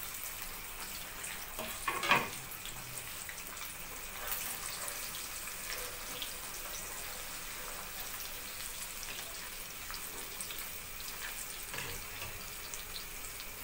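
Par-fried potato fries deep-frying in hot oil in a pan for their second fry: a steady sizzle with small crackles, and a brief louder clatter about two seconds in.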